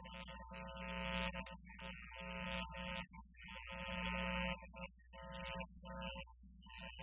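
Faint background music with flat, sustained keyboard-like notes that start and stop in short blocks, over a steady electrical hum.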